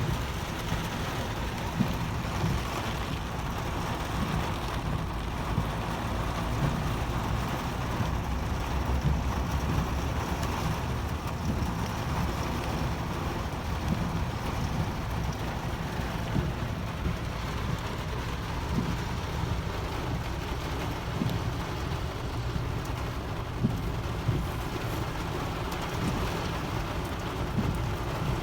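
Heavy rain falling steadily, with wind buffeting the microphone in uneven low gusts.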